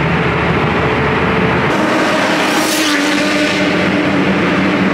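Car engines running steadily, with a louder surge of a car going past about two seconds in.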